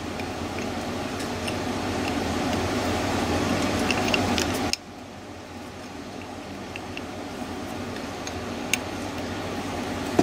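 A spanner clicking and tapping faintly against a bolt, with one sharper metallic click near the end, over a steady background hum that drops suddenly about halfway through.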